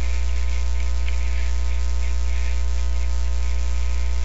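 Steady electrical mains hum: a low tone with a ladder of evenly spaced overtones, and a faint hiss above it.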